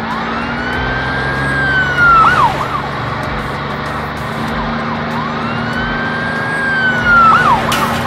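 Cartoon police car siren wailing in two long cycles, each rising, holding high, then dropping away, over a steady low engine hum. A sharp bang sounds right at the end.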